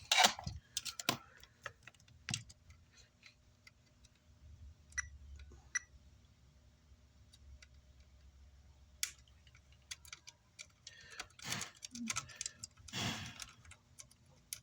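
Small metal hand tools clicking and tapping on an amplifier circuit board while a gate resistor is worked out, in scattered light ticks. A few louder scraping rustles come near the end.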